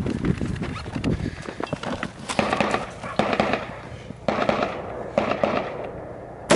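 Footsteps running on dry dirt, then scraping and shuffling as a person drops prone onto a ground mat with a rifle.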